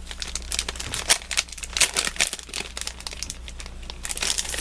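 Packaging crinkling as it is handled, a close run of small sharp crackles that thickens near the end.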